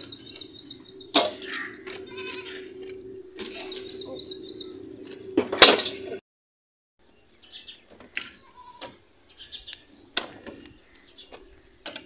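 Metal shovels scraping and scooping loose soil, with two sharp clanks, about a second in and again near halfway, as loads hit the metal pans. A goat bleats near the start, and after a short break come softer scrapes and clicks of digging.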